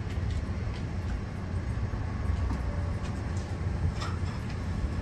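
Steady low rumble of restaurant kitchen equipment running. A few faint clinks of dishes come near the end as bowls on a shelf are handled.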